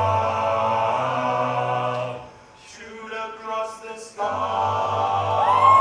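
Male a cappella group singing a held chord over a low vocal bass line. About two seconds in the voices fall away briefly, a thinner, quieter passage follows, and the full chord with the bass returns about four seconds in.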